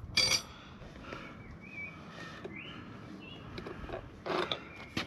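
Metal tyre levers clinking and knocking against a motorcycle wheel rim as a tyre is levered on by hand: a sharp clink near the start and a few more about four to five seconds in, with faint short high squeaks in between.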